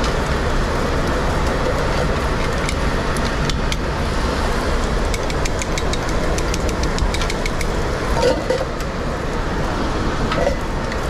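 Commercial kitchen during service: a steady, dense rumble of background kitchen noise, with quick clinks and taps of metal utensils and pans coming thickly through the middle.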